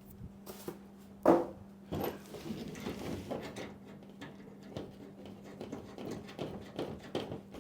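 Packaging and parts being handled: scattered small rustles and clicks, with one sharp knock about a second in. A faint steady hum stops about two and a half seconds in.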